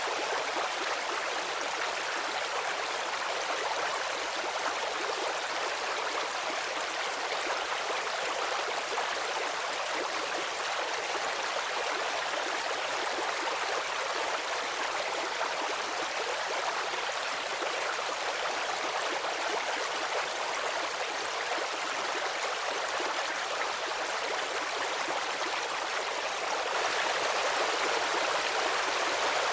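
Stream water running steadily, an even hissing rush with little deep rumble, a little louder near the end.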